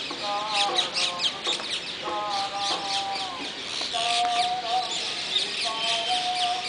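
Indian holy men chanting a prayer for rain: long held notes that bend slightly in pitch, in phrases of about a second. Birds chirp densely and high above the singing.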